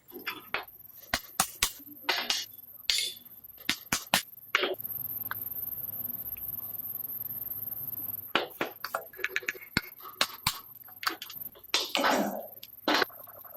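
Irregular sharp clicks and knocks of work on metal parts, with a steady hiss for about three and a half seconds in the middle.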